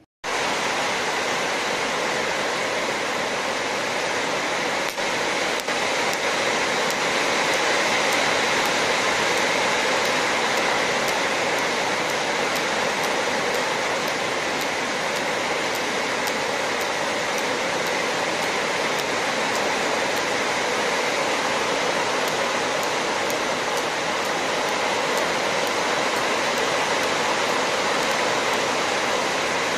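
TIG welding arc on 1.5 mm 304 stainless pipe: a steady, even hiss that starts abruptly as the arc is struck.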